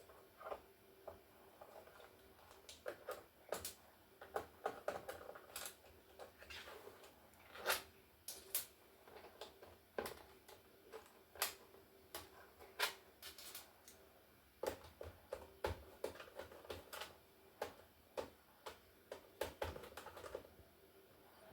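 Faint, irregular clicks and taps of a screwdriver undoing screws and of hands handling the plastic case of a mid-1990s Toshiba laptop, with short pauses between bursts.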